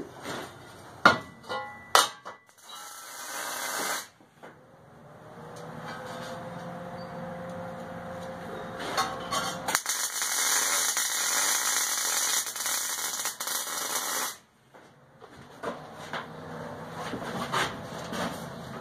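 Wire-feed (MIG-type) welder welding a steel plate onto a steel forge cover: a steady crackling hiss of the arc lasting about four and a half seconds past the middle, cutting off sharply. Before it, clicks and knocks of the metal being set in place and a short burst of welding about three seconds in.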